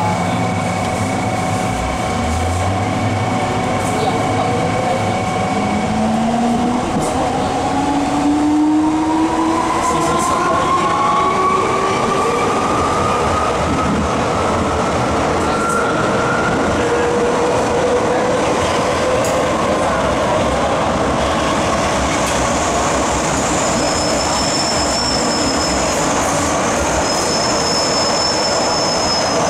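MTR M-Train electric metro train pulling away and accelerating. The traction drive's whine climbs steadily in pitch through the first half, over steady wheel and rail noise. A thin, high wheel squeal comes in about three-quarters of the way through.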